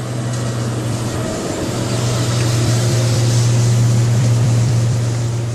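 Heavy excavator's diesel engine running, a steady low drone under mechanical noise, swelling slightly in the middle.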